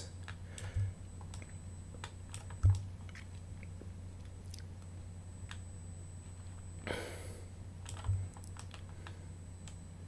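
Scattered soft clicks of a computer mouse and keyboard over a steady low hum, with a few dull low thumps, the loudest about two and a half seconds in, and a short breathy hiss about seven seconds in.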